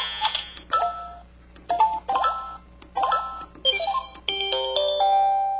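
Samsung SPH-V4900 mobile phone playing its built-in sound effects: a run of short electronic chime jingles about a second apart, each a few quick stepping notes, ending in a longer held chord that cuts off suddenly.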